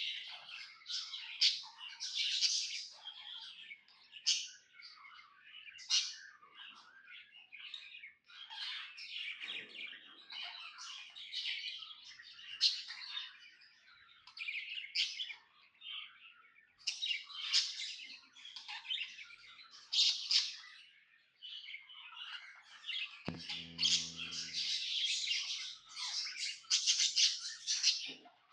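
Pet budgerigar chattering and chirping without pause, a rapid run of short squawks, chirps and warbled notes, the lively sound of a contented bird. Near the end a low hum comes in under the chatter for a second or two.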